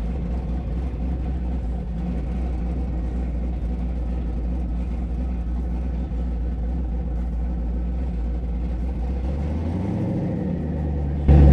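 The twin-turbo 5.3 LS V8 in a Chevy S10 pickup runs at a steady, low rumble. About ten seconds in the pitch rises briefly, and just before the end the sound suddenly gets much louder.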